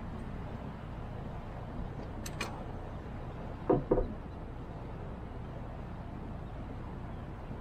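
Two loud knocks in quick succession about halfway through, preceded by two short sharp clicks, over a steady low rumble.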